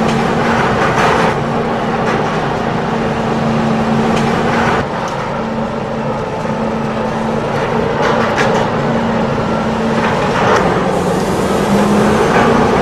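Remote-control excavator's electric motors running steadily with an even hum while it works its boom, with a few short clicks and rattles.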